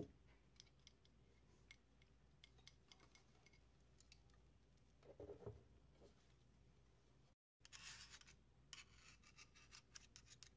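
Faint handling noise from a cassette-deck transport mechanism: small clicks, rubbing and scratching as the metal chassis and its wiring are turned over by hand, with a screwdriver tip touching it near the end. The sound cuts out completely for a moment a little past the middle.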